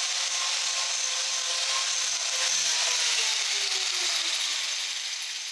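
Angle grinder fitted with a King Arthur's Tools Lancelot 22-tooth chainsaw-chain carving disc, running against the wood at first, then switched off about two seconds in. Its pitch falls steadily as the disc spins down and the sound fades.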